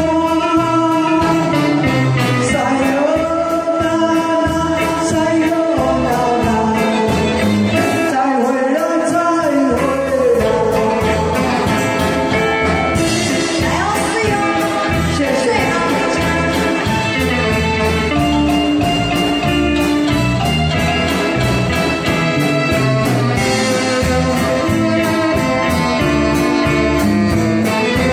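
A man and a woman singing a duet through microphones over amplified band accompaniment with a steady beat.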